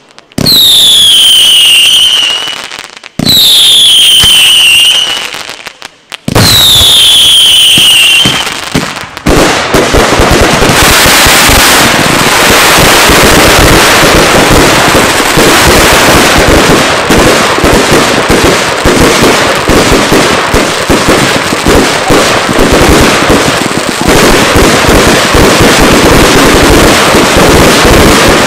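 Daylight fireworks: three sharp launches in the first nine seconds, each followed by a falling whistle lasting about two seconds, then from about nine seconds in a loud, dense barrage of rapid bangs with no pause.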